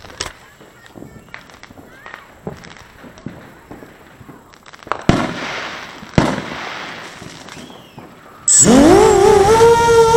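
Neighbourhood fireworks going off: scattered distant pops and crackles, then two loud bangs about a second apart, each with a fading rumble. Near the end a much louder wavering tone starts suddenly and covers everything else.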